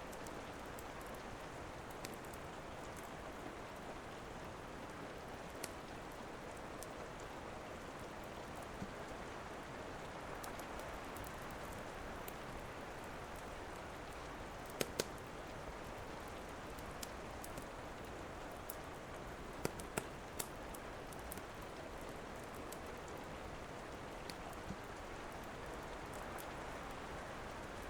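Steady rain, with the sharp pops of a crackling wood fire scattered over it; the loudest pops come as a pair about halfway through and a short cluster a few seconds later.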